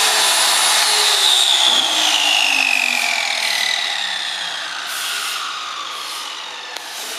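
Circular saw motor on a CNC router gantry, whining at a steady high pitch. From about a second in, its pitch and loudness fall steadily over several seconds as the blade winds down.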